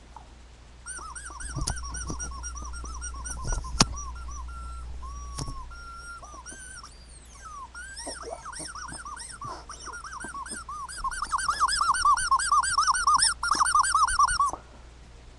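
Squeaky toy squeezed over and over: short squeaks that rise and fall in pitch, coming faster and louder in the last few seconds, then stopping abruptly. A few sharp knocks among them.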